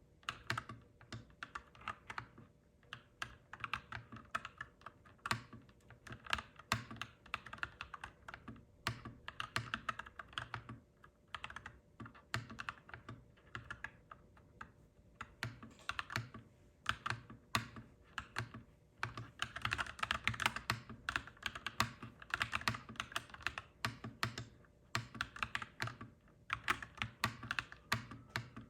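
Clacky mechanical keyboard being typed on: quick runs of keystrokes with short pauses between them.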